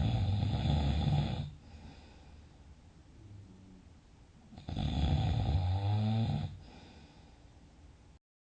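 Loud snoring in a sleeper: two long snores about four seconds apart, the second ending in a rising pitch, with faint breathing between them.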